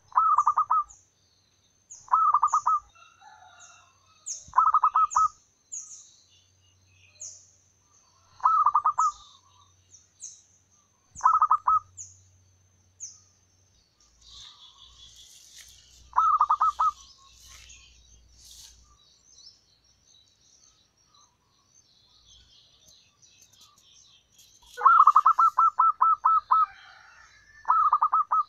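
Zebra dove (perkutut) calling: short phrases of rapid, staccato cooing notes repeated every few seconds, with a longer run of notes near the end. A series of high, thin chirps from a smaller bird runs through the first half.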